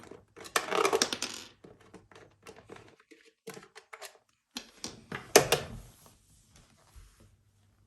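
Clicking and clattering of small metal bike-carrier parts and screws being handled and taken apart, with two louder rattling bursts about half a second and five seconds in and scattered clicks between.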